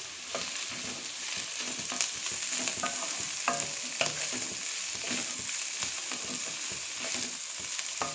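Chopped vegetables sizzling in oil in a black iron wok over a high flame, stirred and tossed with a wooden spatula that scrapes and knocks against the pan several times a second.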